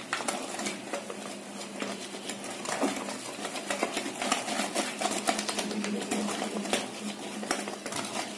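Metal wire whisk beating thick khaman dhokla batter in a bowl, with quick, irregular clicks as the wires knock against the bowl's sides. The Eno fruit salt and lemon juice have just been added, and this is the final mix before steaming.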